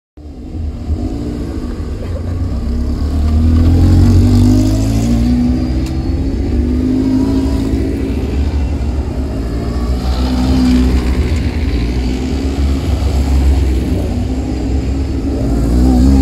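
Engines of Seven-style club racing cars with side exhausts idling and blipping as they roll past at low speed one after another. The sound is loudest about four seconds in and near the end, as a car passes close.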